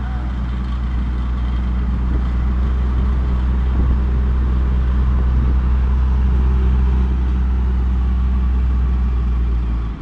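Heavy road roller's diesel engine running steadily close by, a loud, deep, even drone.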